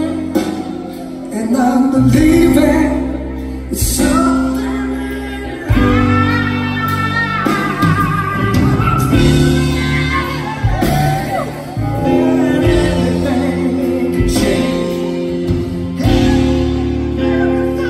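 Live rock-soul performance: a male singer sings long, sustained phrases over held keyboard chords and a low bass line.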